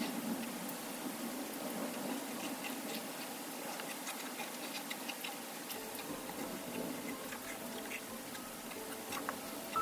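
Steady rain with scattered drop ticks, from a thunderstorm ambience track. Faint held musical tones come in about six seconds in.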